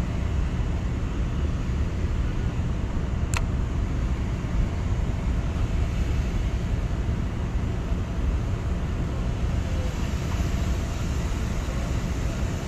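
Steady low rumble of a moored cargo ship's running machinery, with a single sharp click about three seconds in.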